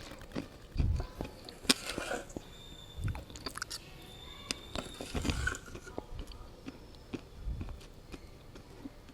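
Slate pencils bitten and chewed close to the microphone: scattered sharp crunches and snaps, with a few low thumps in between.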